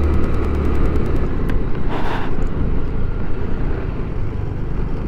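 Scooter engine running under way, with a heavy low rumble of wind on the microphone. A short hiss comes about two seconds in.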